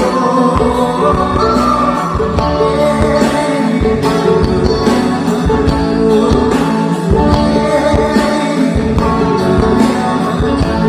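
Live band playing a rock song, with a singing voice over guitar and a steady drum beat.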